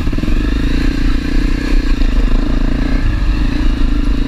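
Honda CRF250L's single-cylinder engine running at a steady, low throttle as the bike rides slowly over a rocky dirt trail.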